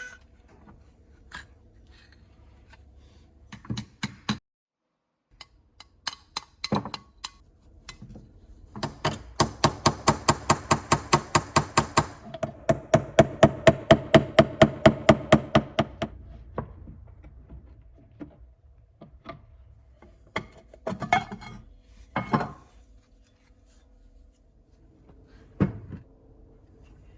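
Hand tool work on metal: a long run of rapid, even hammer taps, about six a second, that takes on a ringing tone partway through. Scattered single knocks and clinks come before and after it.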